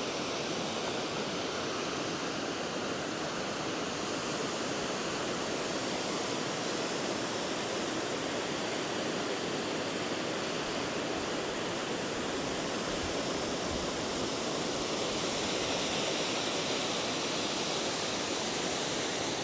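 Waterfall rushing steadily, an even wash of falling water with no break or change, the falls running well.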